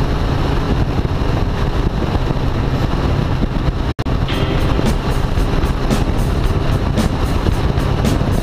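Sport motorcycle running at a steady cruise, engine hum under a rush of wind, with background music over it. The sound briefly cuts out about four seconds in.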